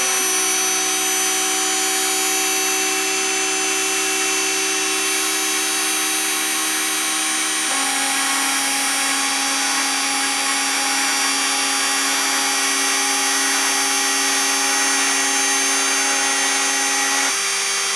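Rotary-tool spindle of a desktop CNC router running at high speed, milling a Lego brick's ABS plastic with a steady high whine. Under it, the machine's axis motors give lower steady tones that change pitch about eight seconds in and partly drop out shortly before the end as the toolpath moves.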